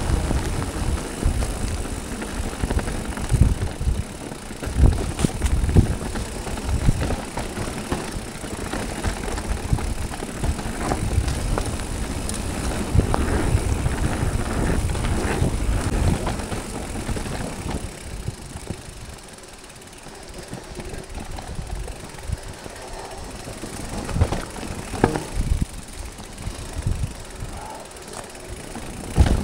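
Specialized Levo SL electric mountain bike riding down a wet root-covered dirt trail: tyres rolling, the bike rattling and knocking over roots, with wind on the microphone. It goes quieter for a few seconds about two-thirds of the way through, then sharp knocks pick up again.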